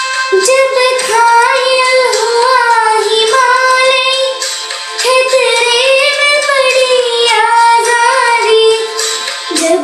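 A young girl singing solo, her voice sliding between held notes with short breaths between phrases.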